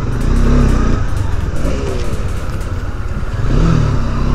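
Motorcycle engine running steadily at low road speed, with the rumble and rush of riding picked up on a bike-mounted or helmet microphone.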